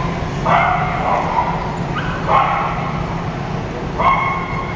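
A dog giving three drawn-out, high yipping barks, about two seconds apart, over a steady low hum.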